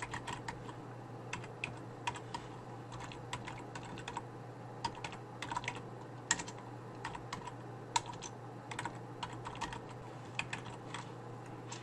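Typing on a computer keyboard: irregular keystrokes as a command is entered, over a steady low hum.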